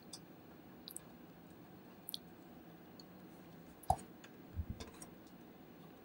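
Faint, scattered clicks and taps of plastic and small parts as a Mac Mini's casing and Wi-Fi antenna board are pressed and handled, with one sharper knock about four seconds in and a couple of dull thumps just after.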